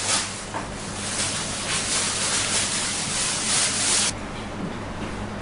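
Thin plastic bag rustling and crinkling as it is pulled off the table's column, cutting off abruptly about four seconds in. A faint steady low hum sits underneath.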